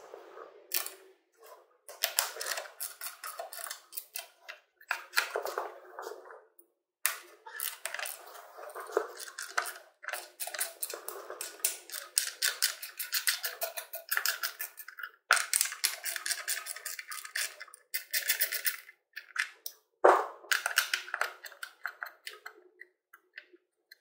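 Socket ratchet clicking in quick runs as the stock banjo bolts of a Harley-Davidson air cleaner backing plate are unscrewed, with short pauses between runs.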